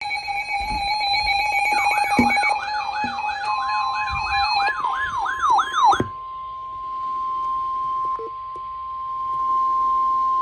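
Overlapping electronic alert tones: several steady beeping tones and a warbling tone that sweeps up and down about two and a half times a second, all cutting off about six seconds in. Under them, from about three and a half seconds in, the steady single-pitch NOAA Weather Radio 1050 Hz warning alarm tone sounds and runs on alone, announcing a severe thunderstorm warning broadcast.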